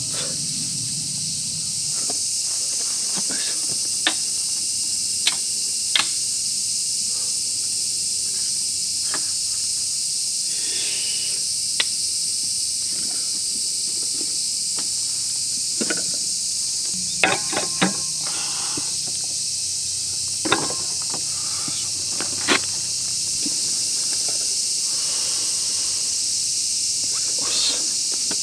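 A loud, steady chorus of cicadas, heard as a high hiss that never lets up, with scattered light clicks and knocks of camp gear being handled.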